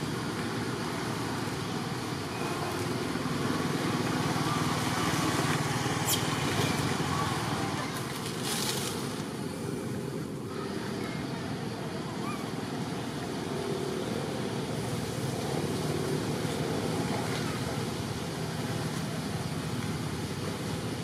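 Steady outdoor background noise: a continuous, even hiss that changes little.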